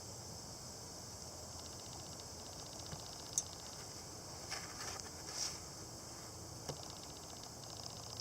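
Insects trilling in rapid pulses with a steady high hiss behind, and a few short clicks; no saw is running.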